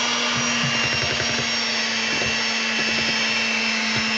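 Electric hand mixer running steadily, a constant motor hum and whine, its beaters working a thick batter of flour, butter and milk in a stainless steel bowl.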